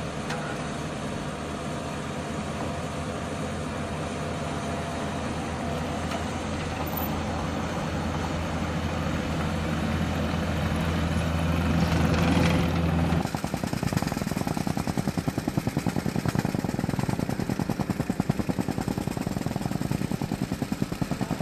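Diesel engine of heavy construction equipment running steadily and slowly growing louder. About 13 seconds in, it cuts to the rapid, even pounding of gas-powered jumping-jack rammers compacting a runway patch.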